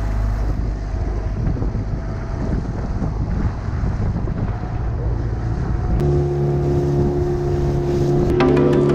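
Inflatable dinghy's small outboard motor running under way, with wind buffeting the microphone and water rushing past the hull. About six seconds in, background music with sustained notes comes in over it, followed by a few sharp percussive clicks near the end.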